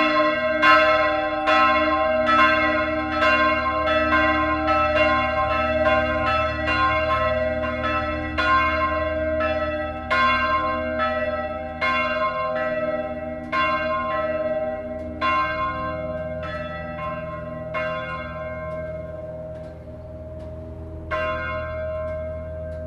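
Neskirkja's church bells ringing, with repeated strikes and a long hum under them. The strikes come less often and grow softer as the ringing winds down, with a last clear stroke near the end.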